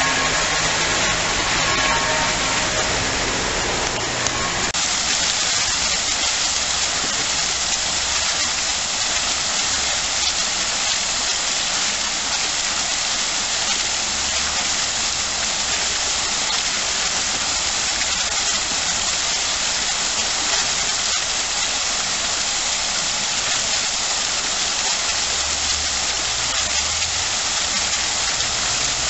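Vertical water jets of an ornamental fountain falling back into the basin: a steady rushing splash that becomes hissier about five seconds in.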